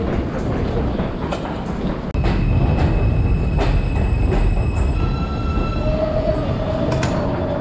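Subway train running on the rails: a steady rumble with rapid wheel clicks, and long, high-pitched squeals from the wheels that come and go.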